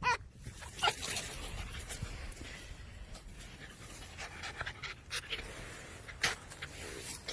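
Wolf panting, a steady run of breathy huffs, with a few brief sharper sounds scattered through it.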